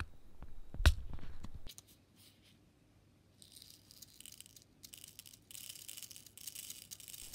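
Round resin diamond-painting drills poured from a small plastic storage container into a ridged plastic sorting tray: a light, hissing rattle in several bursts over the second half. About a second in there is a single sharp click as the plastic containers are handled.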